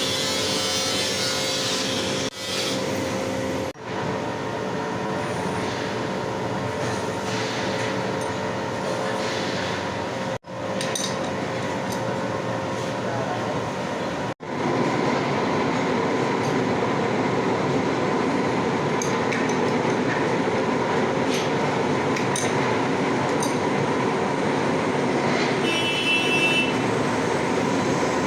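A machine tool running steadily as it machines a metal crane bearing flange, with a steady hum and tone under the cutting noise. The sound cuts off abruptly a few times and is louder in the second half.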